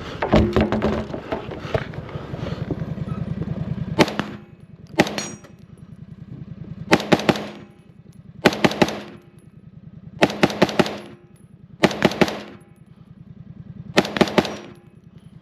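Rifle fire on a timed course: a fast run of shots in the first second or two, then about seven quick strings of two or three shots, one to two seconds apart, as the shooter engages target after target. A steady low rhythmic thudding runs underneath.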